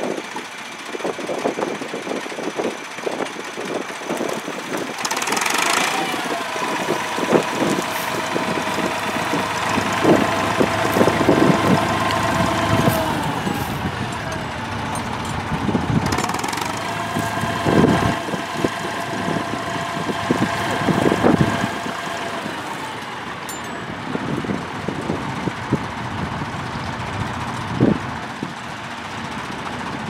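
David Brown tractor engine running steadily under load while pulling a mounted plough, with a higher steady whine that comes and goes and occasional short thumps.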